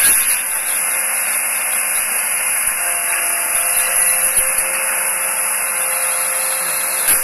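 Garbage compactor truck running: a steady hiss with a faint hum underneath.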